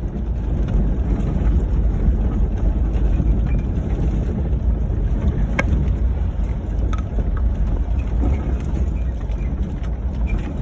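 Ford Crown Victoria driving on rough off-road ground: a steady low rumble of engine and tyres, broken by a few sharp knocks, the clearest about halfway through.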